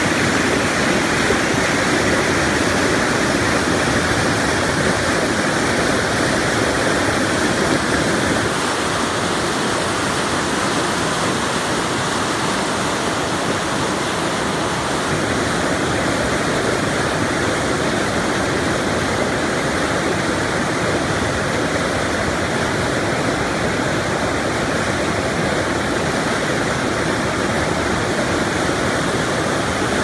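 Fast river rapids, muddy water rushing over rocks in a steady rush of water noise that eases slightly about eight seconds in.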